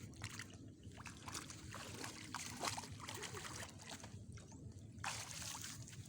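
Shallow lake water sloshing and trickling at the shoreline, faint and irregular.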